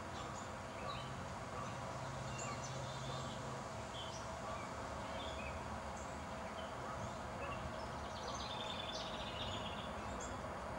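Woodland ambience with birds chirping: scattered short high calls, and a quick trill of repeated notes about nine seconds in, over a steady hiss.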